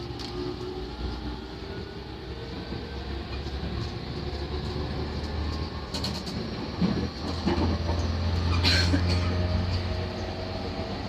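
JR E231 series 500 commuter train running between stations, heard from inside the car: a steady low rumble with faint whining tones, and a couple of sharp clacks from the wheels about six and nine seconds in.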